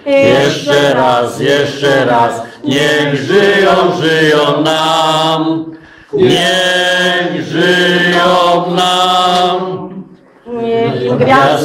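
A group of people singing a song together without instruments, in long held phrases with short breaks for breath between lines.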